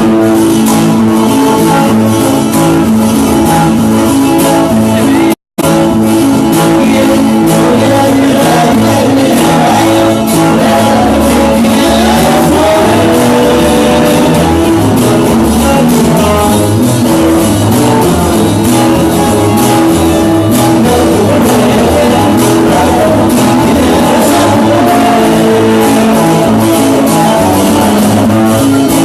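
Loud band music with guitars, a moving bass line and singing. The sound cuts out briefly about five seconds in, then carries on.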